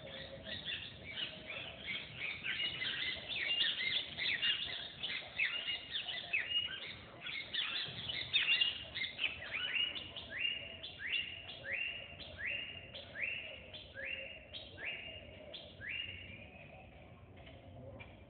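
Several birds chirping and calling in a busy chorus. In the second half one call stands out, a short sweeping note repeated at an even pace of about three every two seconds, before it thins out near the end.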